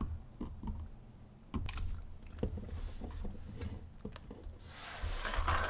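A small plastic bottle of ink and isopropyl alcohol being capped and handled, giving a scatter of light plastic clicks. Near the end it is shaken to mix the settled ink, a burst of noise about a second long.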